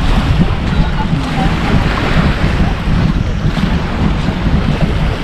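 Wind buffeting the microphone in a steady low rumble, over the wash of waves breaking on the shore.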